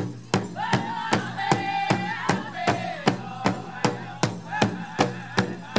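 Powwow drum group: several drummers striking one large powwow drum together in a steady beat, about two and a half strokes a second. High-pitched group singing runs over the beat.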